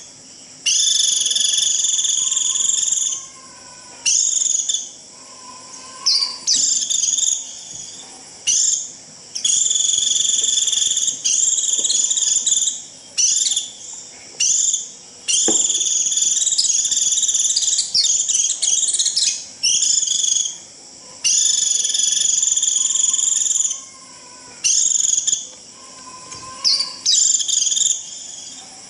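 White-eye (vành khuyên) giving its shrill, buzzy 'rít' calls in long bursts of about two to three seconds, repeated with short gaps between them. This is the flock-calling call used to draw other white-eyes in.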